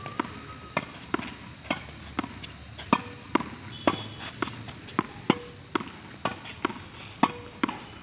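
Tennis ball struck over and over with a racket in quick volleys: a steady run of sharp pops, about two a second, some louder than others.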